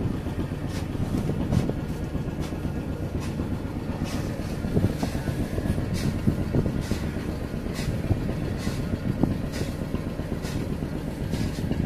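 Fishing boat's engine running steadily with a low rumble, with irregular light clicks and knocks as the gill net and its floats run out over the pipe chute.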